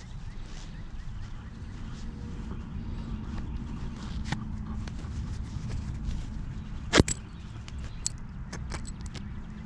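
Small clicks and taps of baitcasting reel parts being handled during cleaning, with one sharp click about seven seconds in, over a steady low rumble.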